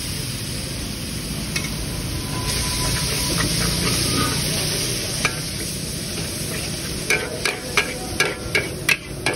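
Mee goreng noodles sizzling in a large wok while a metal spatula stirs and scrapes them. Near the end the spatula strikes the wok in a quick run of sharp clanks, about three a second.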